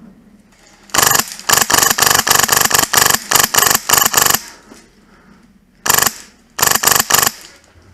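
Polarstar Fusion Engine HPA airsoft M4 firing, a fast string of shots about five a second for some three seconds, then a short group of about four more shots near the end.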